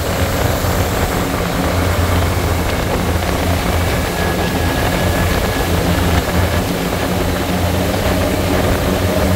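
Twin Suzuki outboard motors running steadily at speed on a speed boat, a constant low engine drone under the rush of the wake and spray off the hull.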